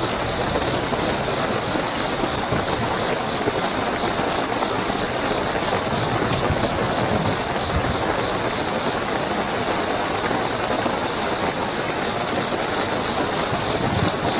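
Steady heavy rainfall, with a continuous high-pitched trill of crickets running over it.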